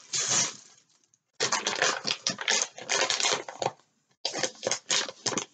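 Crinkly plastic packaging from a diamond-painting kit being handled, crackling in three bursts of quick clicks and rustles with short pauses between.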